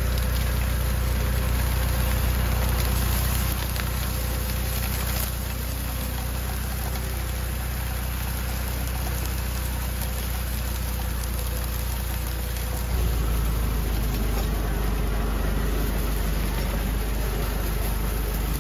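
Tractor engine running steadily while driving a PTO-powered sugarcane stubble-levelling machine (a Matsumoto Kiko kabu-soroe machine) through dry cane trash, a deep, even engine hum. It grows louder about two-thirds of the way through.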